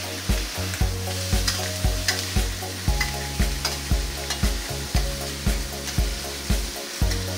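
Chicken pieces sizzling in sesame oil in a wok, stirred and turned with a metal spatula that scrapes and clinks on the pan. A low, regular thump about twice a second runs underneath.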